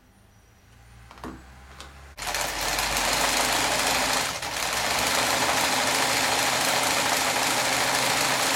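Chaika-142M electric sewing machine starting up about two seconds in and running steadily while stitching a zigzag seam through cloth, easing off briefly around the four-second mark. This is a test seam after the shuttle hook was adjusted to cure skipped stitches on the right-hand needle swing.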